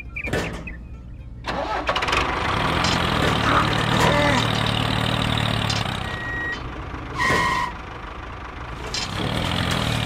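A tractor engine starts about a second and a half in and then runs steadily. A short beep sounds about seven seconds in.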